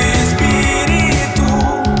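Rock music from a band, with a steady beat.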